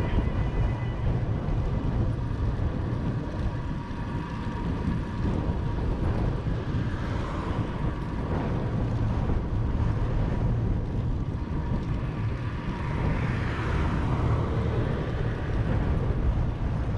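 Wind rushing over the microphone of a camera on a moving bicycle, with road rumble: a continuous low, blustery noise.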